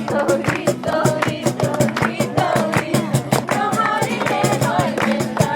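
Music with a singing voice over a steady beat, in a Latin style.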